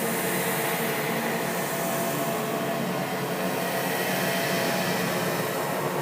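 A steady, dense noisy drone laced with faint sustained tones, an eerie ambient sound effect with no distinct events.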